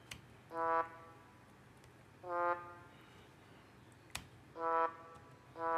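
Notation software playing back short synthesized trombone notes, one for each note selected with the computer's arrow keys: four brief notes at uneven intervals. Two sharp clicks from the keyboard, one at the start and one about four seconds in.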